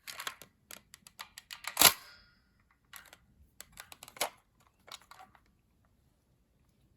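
Hard plastic clicks and snaps from a vintage Kenner M.A.S.K. Switchblade toy being transformed from helicopter to jet mode: a quick run of clicks, one sharp loud snap about two seconds in, then a few more clicks that stop about five seconds in.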